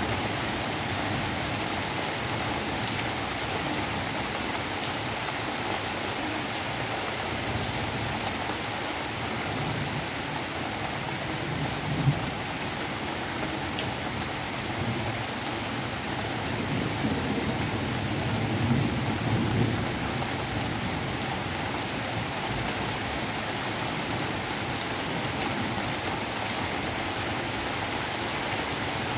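Steady rain falling on broad papaya leaves and garden plants, an even hiss throughout. A single sharp knock sounds a little before the middle, and a low rumble swells and fades a little after it.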